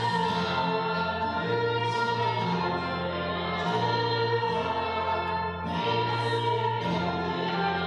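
Choir singing with instrumental accompaniment over held bass notes that change every second or two.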